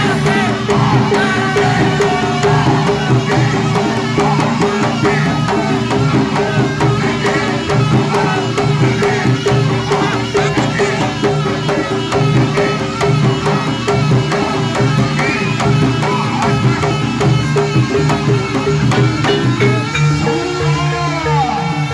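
Live Javanese jaranan gamelan music: fast, dense kendang drumming over sustained ringing gongs and kenong, with a wavering reedy slompret melody weaving above.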